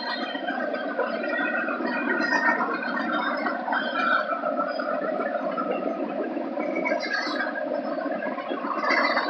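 Freight cars of a manifest train rolling past: a steady rumble and clatter of steel wheels on the rails.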